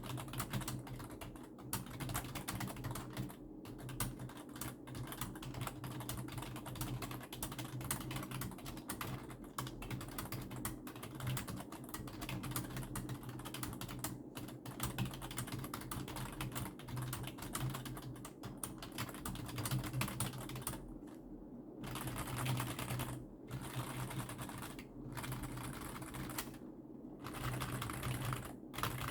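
Continuous fast typing on a Logitech K120 rubber-dome keyboard: a dense stream of soft key presses, broken by a few short pauses, the longest about 21 seconds in.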